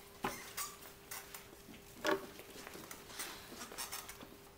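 Scattered light knocks, clicks and shuffling of people moving about and settling into chairs at a table, with a louder knock about two seconds in, over a faint steady hum.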